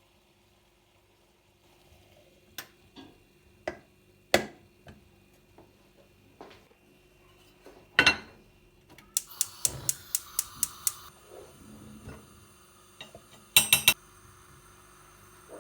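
Dishes, pots and cutlery clinking and knocking as food is prepared, in scattered single knocks, with a quick run of about ten clicks around the middle and a loud clatter near the end.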